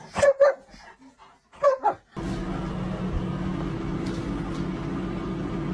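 A German shepherd gives two short vocal sounds, brief pitched whines or grumbles. About two seconds in they give way to a steady low hum.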